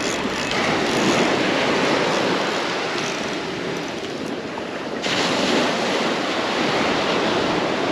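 Surf breaking and washing onto a sandy beach, a steady rushing noise with wind buffeting the microphone; it grows louder and brighter suddenly about five seconds in.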